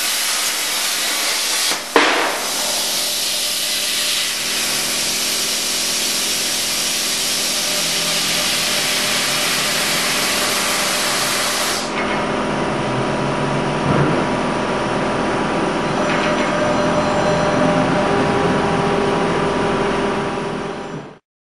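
Hypertherm 1250 plasma torch cutting 10 mm mild steel: a loud, steady hiss of the arc and cutting air, with a sharp pop about two seconds in. About halfway through, the high hiss drops away, leaving a lower, humming noise with steady tones until the sound cuts off suddenly.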